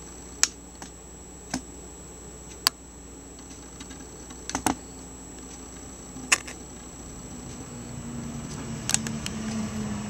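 Camera handling noise: scattered sharp clicks and taps, about eight of them, over a steady low hum, with a faint low drone growing louder over the last few seconds.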